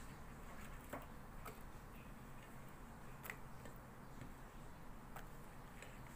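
About five light, scattered clicks and taps as cut vegetables are picked off a ceramic plate and laid into a pot, over a faint steady hum.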